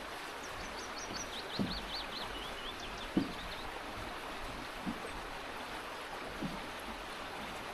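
Steady rushing of a small stream, with a songbird singing a quick run of high notes for about three seconds near the start. Four soft thuds come at even intervals about a second and a half apart.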